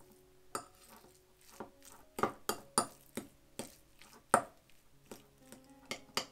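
Metal fork tapping and scraping against a ceramic bowl while mashing chopped hard-boiled eggs, in irregular clicks about two a second, the sharpest a little past the middle. Soft background music with sustained notes plays underneath.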